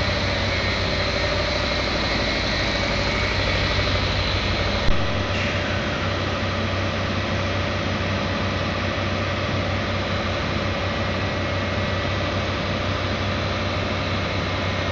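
HCCI engine running steadily on biomass-gasifier producer gas, with a dense, even machine noise. About five seconds in there is a sudden sharp sound, and after it the deepest rumble drops away.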